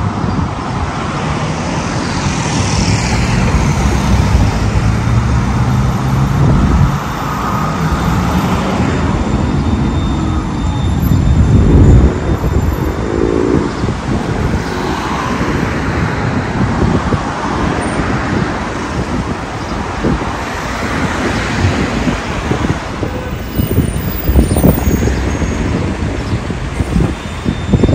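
City street traffic: road vehicles passing one after another in a steady stream, the loudest pass about twelve seconds in, with a few sharp knocks near the end.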